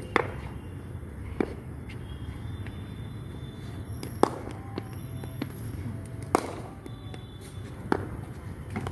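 Hard cricket balls knocking sharply in a concrete-floored practice net, striking the bat and bouncing on the concrete: five separate knocks at irregular intervals over a low steady hum.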